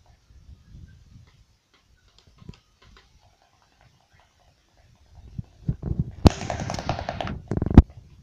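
A child's electronic toy drum being hit: quiet at first, then about six seconds in come two sharp, loud knocks about a second and a half apart, with a dense, pitched sound sounding between them.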